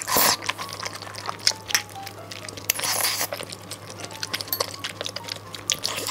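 Close-up eating sounds, chewing clicks and wet mouth noises with a louder mouthful about three seconds in, over soft background music.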